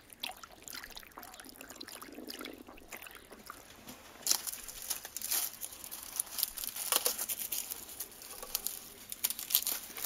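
Faint trickle of stream water over leaves and stone. About four seconds in, crisp crackling and snapping of dry, papery shallot and onion skins begins, as a knife cuts shallots from a braid and hands peel red onions.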